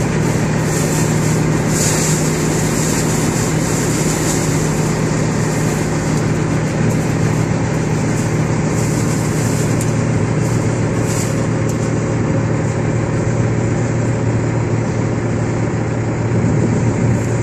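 Heavy diesel engines of a tractor and a John Deere combine harvester running steadily under load, heard from inside the tractor cab. The low hum drops somewhat in pitch partway through, while the combine's machinery is clogging with grain and straw.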